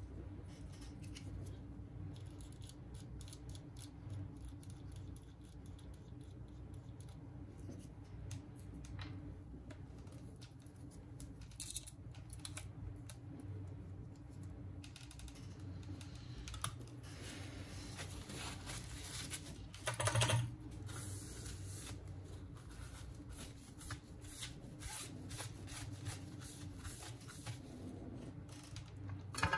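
Small irregular clicks and taps of repair tools and phone parts being handled on a workbench, over a steady low hum, with one louder knock about twenty seconds in.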